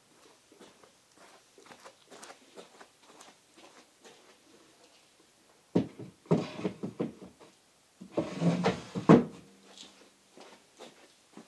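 Solid oak desk drawer being slid back into its pedestal: a knock and wooden rattling about six seconds in, then a longer scraping slide that ends in a sharp knock as the drawer shuts, a few seconds later.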